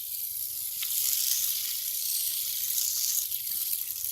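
Fidget spinner spinning by hand: a steady, high hiss from its steel ball bearings. It is a spinner the owner calls rough, not smooth at all, though good at spinning.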